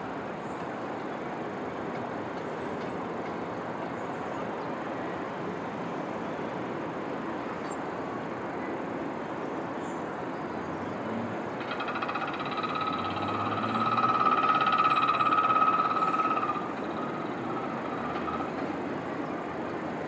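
Distant urban rumble with a passing S-train, its wheels or brakes giving a high metallic squeal for about five seconds midway that cuts off sharply.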